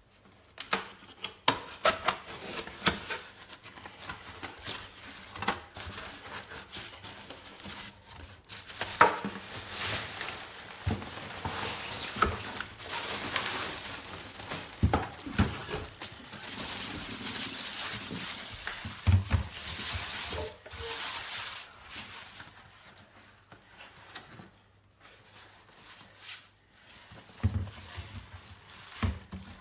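Handling noises: scattered clicks and knocks, with denser rustling from about ten seconds in until about twenty-one seconds in.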